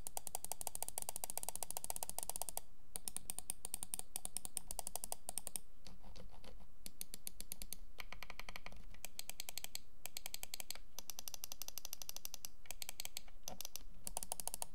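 Keychron M3 gaming mouse switches being clicked rapidly in a demonstration: Kailh 8.0 switches under the main buttons and Huano green-dot switches on the other buttons. The clicking comes in runs of a few seconds, each with a slightly different tone, with short pauses between them.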